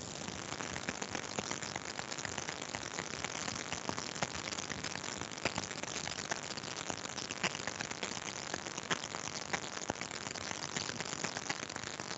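Computer keyboard typing picked up by an open microphone on the call: many irregular light key clicks over a steady hiss.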